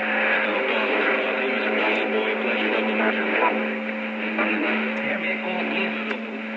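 A received transmission over a Stryker SR-955HP CB radio speaker: a steady buzzing tone under garbled, distorted audio and static with no clear words. The operator takes the garbling for the other station's microphone breaking up, though it could be skip (DX).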